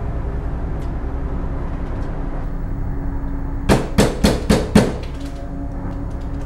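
Four firm knocks on a door in quick succession, about four seconds in, over a low steady musical drone.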